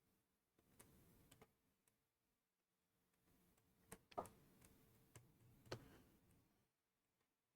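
Faint, scattered clicks of a computer keyboard, a few at a time, with the loudest ones around the middle.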